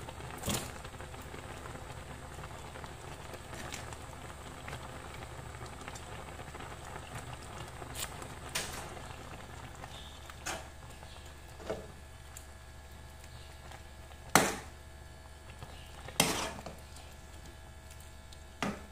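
Noodles boiling in a pan of water, a steady bubbling hiss, broken by about eight sharp clacks of a metal spatula knocking against the pan and the sardines being stirred in. The loudest clack comes about fourteen seconds in.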